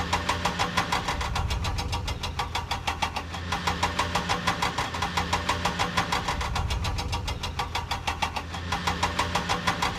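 An engine running with an even, rapid knocking beat, several beats a second, over a steady low hum.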